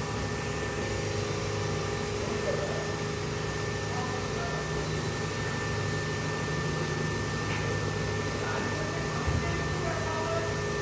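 Steady machine hum with a constant high whine, even in level, with no separate knocks or strikes.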